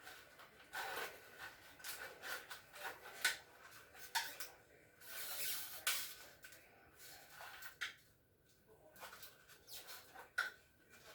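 Scattered light clicks, taps and rubbing at uneven intervals, from small parts and screws being handled during a refrigerator damper repair.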